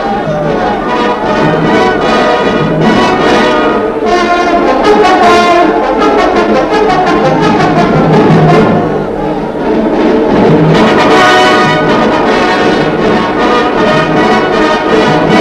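Orchestral film score with brass to the fore, played loud and without a break.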